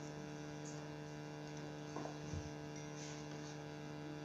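Steady low electrical hum, a few even pitches held without change, with a couple of faint brief sounds about two seconds in.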